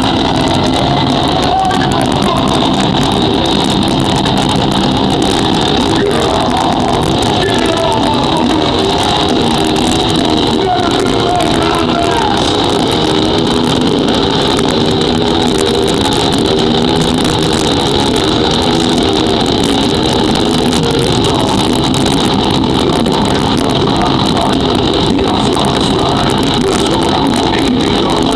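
A live metal band playing loud at an indoor concert, with distorted electric guitars and drums. The amplified sound is picked up from the crowd by a camera microphone and is so loud that it overloads into one unbroken, distorted wall of sound.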